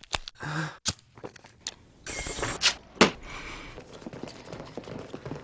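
A fast-cut series of film sound effects: several sharp clicks and knocks in quick succession, a burst of hissing noise about two seconds in, and a loud sharp hit just after three seconds, followed by a lower, busier rustling texture.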